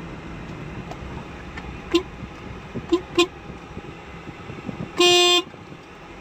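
Vehicle horns in traffic over steady road noise: three short toots in the middle, then a single louder honk of about half a second near the end.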